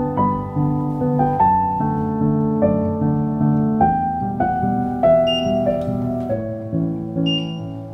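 Background piano music: a gentle melody of struck notes over soft chords, each note fading after it is played.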